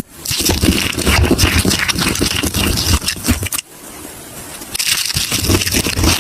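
Dry soap being crushed and broken, a dense run of crackling crunches with a pause of about a second a little past halfway.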